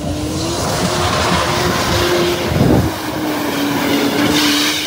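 Small off-road 4x4 SUV's engine held at high revs, one steady note rising slightly, with wheels spinning and throwing mud and gravel. A low thud comes a little under three seconds in.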